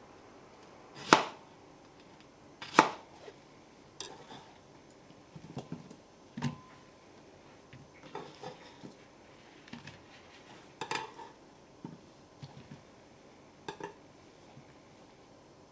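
Chef's knife cutting peeled peach and knocking on a plastic cutting board, two sharp knocks near the start. Then softer taps, scrapes and clinks as the peach chunks are pushed with the knife into a glass bowl.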